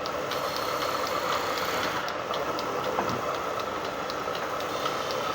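A machine running steadily, with a faint high tick about two and a half times a second.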